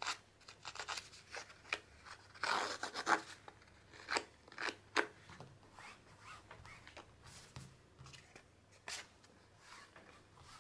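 A bladed edge-distressing tool scraped along the edge of a paper card in short, irregular rasping strokes, shaving and fraying the paper edge.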